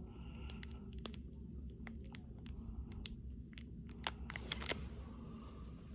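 Baseball trading cards being handled and flipped through by hand: a scatter of light, sharp card clicks and rustles, with a few louder snaps about a second in and again around four seconds in.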